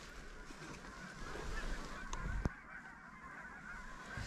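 Geese honking faintly, a scatter of overlapping calls, with a sharp click about two and a half seconds in.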